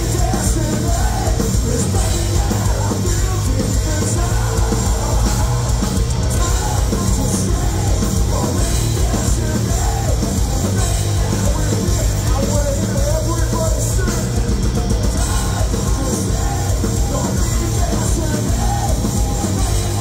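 Heavy metal band playing live: distorted electric guitars, bass and a pounding drum kit at full volume, with shouted, sung vocals over the top.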